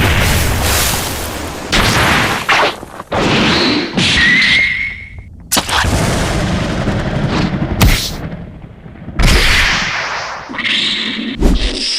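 Anime fight sound effects: a rapid string of booms and impacts from an energy-blast battle, broken by abrupt cuts and silences, with a short rising tone about four seconds in.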